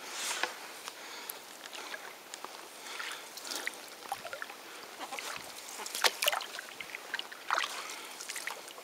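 Water splashing and trickling along a canoe's hull as it is paddled, with irregular small splashes and drips; the sharpest splash comes about six seconds in.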